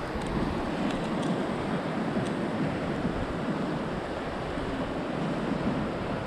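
Heavy sea surf washing steadily onto the shore, with wind buffeting the microphone. A few faint clicks come in the first couple of seconds.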